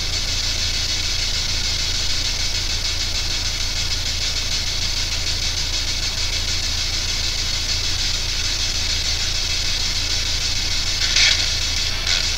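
Steady radio static hiss from a P-SB7 spirit box sweeping, over a low electrical hum, with two short louder bursts of static near the end.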